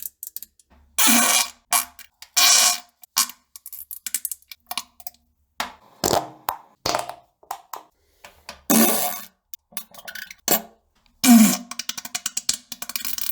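A string of loud fart sounds, about eight to ten bursts with short gaps between them, each a low rasp; some are brief blasts and a longer one near the end trails off in a sputtering crackle.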